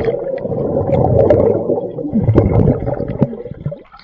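Muffled churning and bubbling of swimming-pool water heard underwater, right after a person plunges in; it drops away a little before the end.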